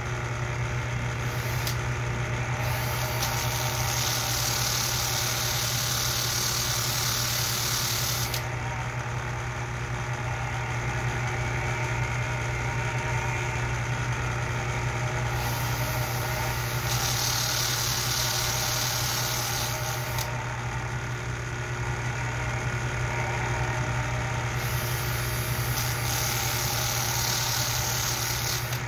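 Bench polishing motor running with a steady hum, while a drill-spun nickel-headed copper rivet is pressed against its abrasive sanding drum in several spells of high-pitched grinding hiss, sanding the head down in diameter.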